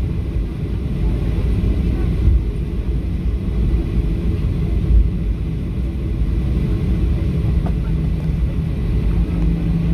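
Boeing 737 taxiing, heard inside the cabin beside the engine: a steady low rumble of the turbofan engines at low taxi thrust and the wheels rolling on the taxiway. A low steady hum comes in near the end.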